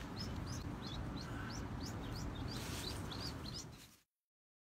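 Ducklings peeping, short high peeps about three a second, over a low steady rumble; the sound cuts off suddenly about four seconds in.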